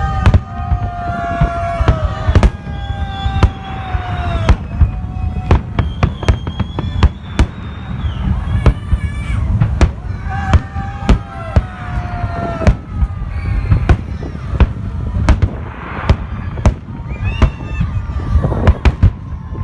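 A fireworks salute: many sharp bangs at irregular intervals over a continuous low rumble of shell bursts. Several drawn-out pitched wails slide slowly down in pitch over the bangs.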